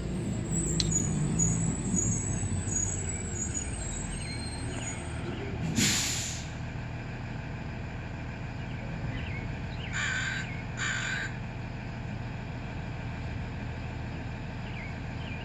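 A crow caws twice in quick succession over a steady low rumble of distant traffic, with one short harsh burst about six seconds in.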